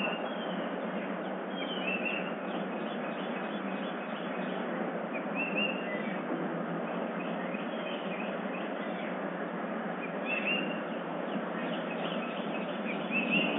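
Short bird chirps every few seconds over a steady background hiss.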